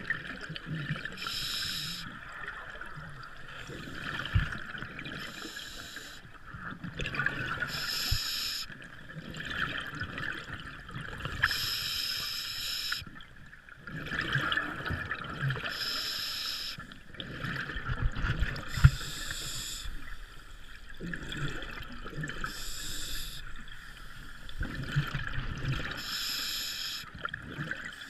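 A scuba diver breathing through a regulator underwater. Each inhale gives a hiss, each exhale a burst of bubbling, with a breath every three to four seconds.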